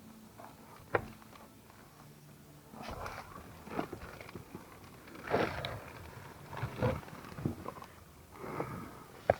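Metal parts and tools of a car steering column being handled and fitted during reassembly: a sharp click about a second in, then irregular knocks, clinks and scraping.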